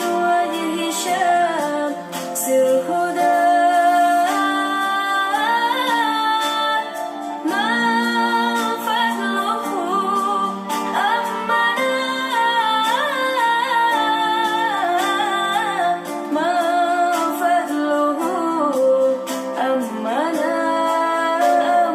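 A song with a woman singing over sustained accompaniment, played through the Xiaomi Mi TV 4A's built-in speakers. It sounds thin, with no deep bass.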